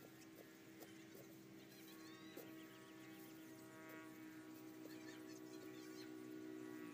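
Faint, scattered knocks of a metal digging bar jabbing into dry earth at a crab burrow, under a quiet, steady humming drone.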